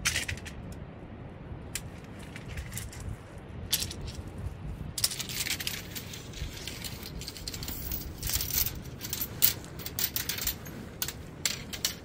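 Sectioned tent pole clicking and rattling as it is shaken out and handled, with sharp clicks at the start and a dense run of crackling rustle from about halfway in as the pole is fed through the tent fabric. A steady low rumble of wind and surf runs underneath.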